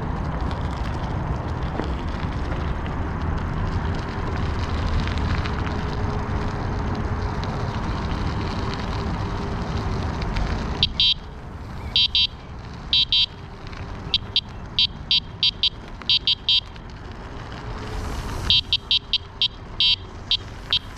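Wind and riding noise on a moving e-bike, then from about halfway the bike's electronic horn beeping many times in short, high-pitched bursts. The beeps come in irregular runs with a short pause between them.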